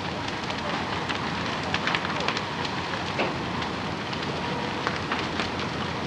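A large wooden sawmill building burning fiercely: a steady rushing noise of flames, broken by frequent sharp crackles and pops.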